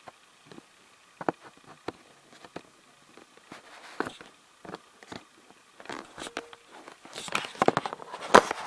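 Headphone packaging being handled and picked at: scattered clicks, taps and crackles, sparse at first and getting busier and louder near the end.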